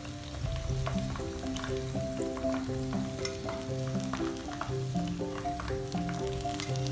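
Potato pakoras deep-frying in hot oil: a steady sizzle with scattered sharp crackles as they are lifted out with a spatula. A background music melody plays over it.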